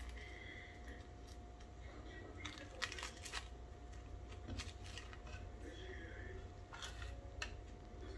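Kitchen twine being pulled and worked off a roasted rolled chicken on a wooden cutting board: faint string and handling noise with a few sharp clicks, a cluster of them about three seconds in and two more near the end, over a steady low hum.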